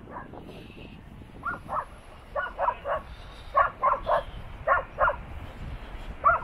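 A dog barking repeatedly in quick runs of two or three short barks.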